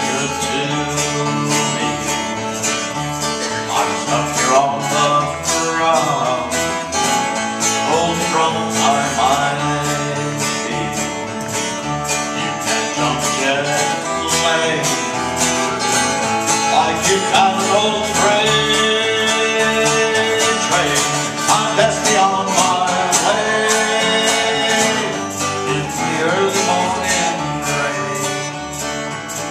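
Live acoustic guitar and electric bass guitar playing a country-folk song in a steady rhythm, with no clear singing.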